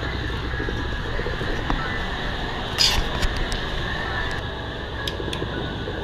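Several sharp metallic clinks, the loudest about three seconds in, over a steady rushing background noise.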